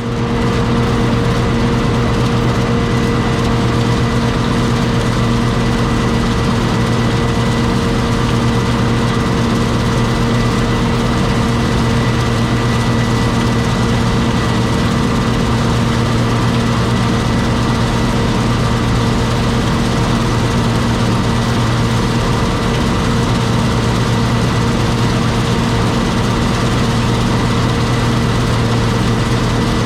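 John Deere 6620 combine's diesel engine running at a steady speed, with a constant hum and a faint high whine.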